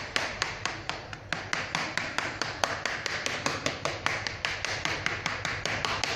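A fork pricking pie dough in a metal baking tray: quick, even taps as the tines go through the dough and strike the tray, several a second.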